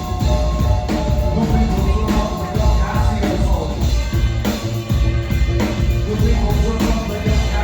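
Live rock band playing loudly, with heavy bass and drums up front.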